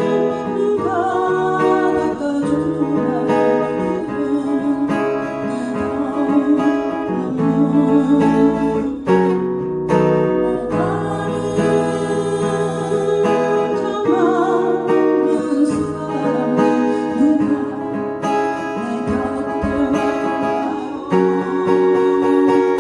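Acoustic guitar played in a slow rock strumming pattern, with palm-muted chords and walking bass runs.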